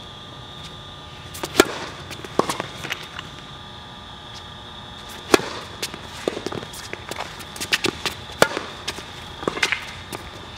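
Tennis ball struck by rackets during a rally on an outdoor hard court: sharp pops every few seconds, the loudest about one and a half and five seconds in, with smaller ticks between.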